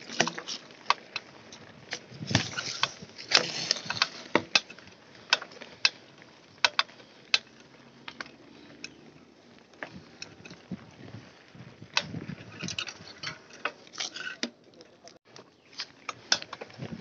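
Mountain bike rattling over a rooty dirt trail: irregular sharp knocks and clicks from the bike jolting over bumps, over a low rush of riding noise.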